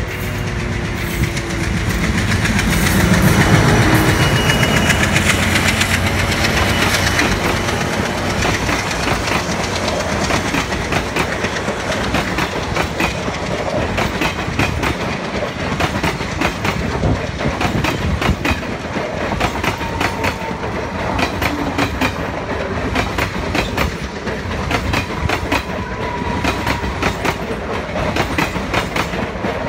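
Indian Railways express passenger train passing close by at speed. It is loudest about three to four seconds in as the head of the train goes by, then the coach wheels keep up a steady, rapid clickety-clack over the rail joints.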